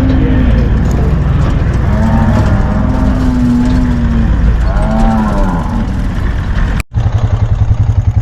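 Weaner calves in the yards bawling, with a few long mooing calls, one about two seconds in and another near the five-second mark, over a steady low rumble. About a second before the end the sound cuts to an engine running with an even, rapid pulsing beat.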